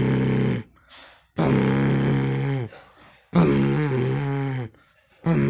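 A man's voice making long, drawn-out vocal sounds without words, each held for about a second and a half at a fairly steady pitch with slight bends, four times with short pauses between.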